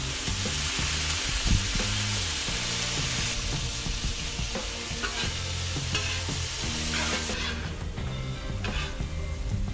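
Chicken broth poured onto a hot Blackstone flat-top griddle with broccoli and Spam: a loud steaming sizzle, strongest over the first few seconds and dying down about seven seconds in, with spatula scrapes now and then.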